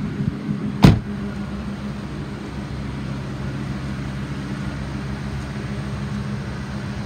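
A truck door slammed shut about a second in, then the 2002 Ford F-550's 6.8-litre V10 gas engine idling steadily.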